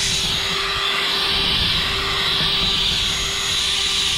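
Electric drill spinning a 1200-grit sanding pad against a plastic headlight lens: a steady motor whine over an even sanding hiss. This is the 1200-grit step, taking out the scratches left by the 800 grit.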